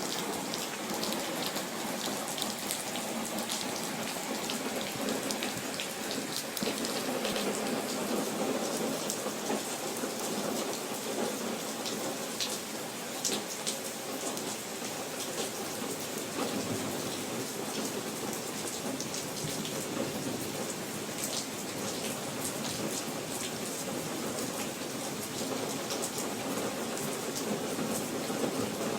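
Steady rain falling, with frequent sharp ticks of individual drops striking a surface.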